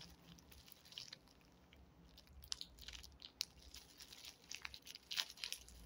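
Faint crinkling and small clicks of a thin plastic bag being handled and untied by the fingers, sparse at first and busier from about halfway through.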